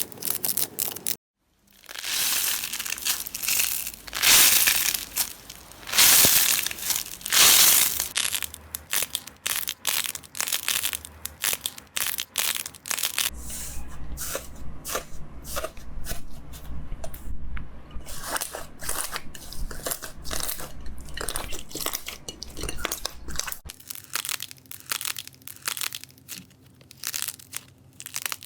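Slime being squished and worked, giving long crunching, crackling swells and then a dense run of quick popping clicks. There is a brief break about a second in.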